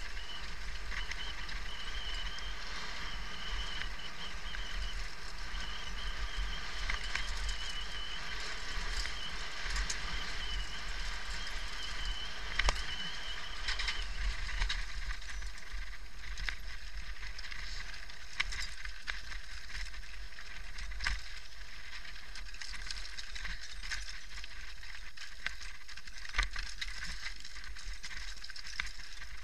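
Mountain bike rolling fast down a loose gravel and stone trail: a continuous rattle of tyres and frame over the stones, with frequent sharp knocks from rocks, over a low rumble. A thin steady high tone runs through the first half and stops about halfway through.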